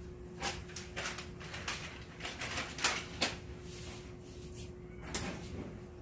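Irregular sharp clicks and knocks, about seven of them, over a faint steady hum.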